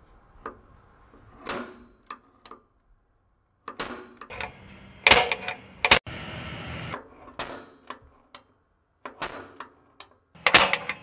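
Scattered sharp clicks and knocks from handling a bar clamp and hand tools on a radiator bracket, with a short scrape about six seconds in and a quick run of clicks near the end.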